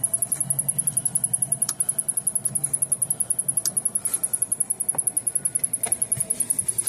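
Samsung rear-projection CRT television ticking rapidly and evenly, about a dozen high-pitched ticks a second, with a few louder clicks among them. The owner takes the ticking for a sign that something in the set is shorting out without blowing its internal fuses.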